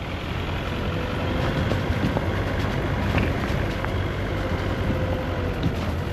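Car on the move: steady engine and road rumble, with a few faint light knocks.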